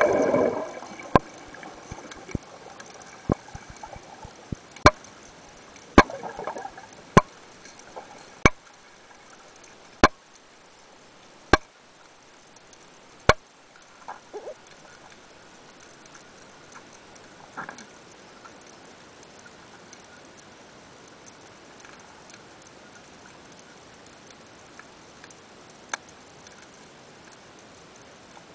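A splash and bubbling as the camera plunges under the water's surface. Then a faint underwater hiss broken by sharp single clicks about every second or so for the first half, with only a few fainter clicks after that.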